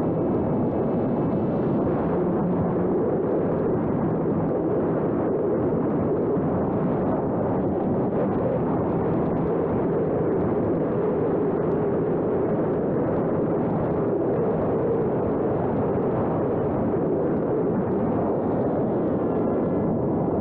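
Steady rushing wind buffeting the microphone of a camera carried on a small homemade electric RC plane in flight.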